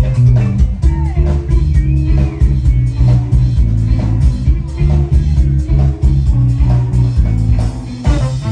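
Live band playing, with a heavy bass line and drum kit out front and electric guitar over them; a few short sliding notes ride on top.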